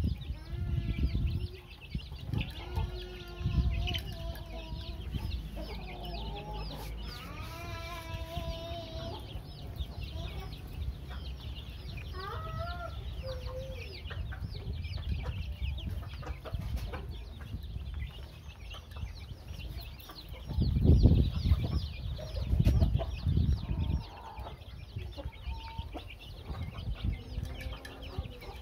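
Young chicks peeping constantly as they feed, many short high calls overlapping, with lower, longer calls from a grown chicken in the first third. A few loud low thumps come about three-quarters of the way through.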